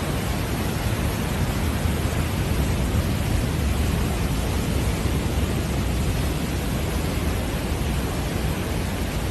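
Steady roar of strong typhoon wind and surf, with the wind buffeting the microphone.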